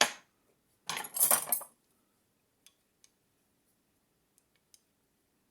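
Steel butter knife clinking against metal: a sharp click at the start, a louder clatter about a second in, then a few faint ticks.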